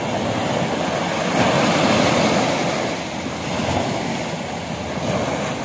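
Small waves washing up onto a sandy beach: a steady rush of surf that swells a little about one and a half seconds in.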